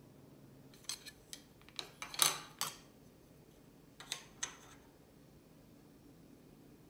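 Tableware being set down on a table: a cluster of light clinks and knocks of ceramic bowls and wooden spoons about a second in, the loudest a little after two seconds, then two more knocks around four seconds in as a wooden spoon is laid beside a bowl.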